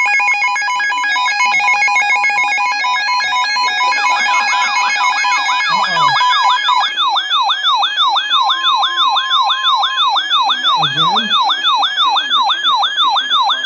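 Loud electronic alarm tones: a stack of beeping, on-off tones, joined about four seconds in by a rapid electronic siren yelp that sweeps up and down about three times a second.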